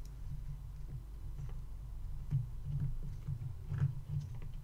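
A few faint, scattered clicks and taps as a small loose part is tried for fit against the metal body of a diecast toy car, over a steady low hum.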